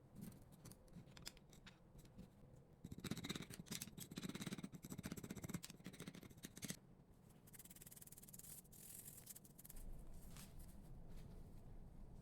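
Quiet scraping and rubbing with small clicks, busiest from about three to seven seconds in.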